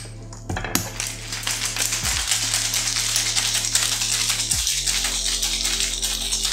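Ice rattling hard inside a glass-and-metal Boston-style cocktail shaker being shaken vigorously, starting about a second in, after a couple of sharp clicks as the metal tin is seated onto the glass.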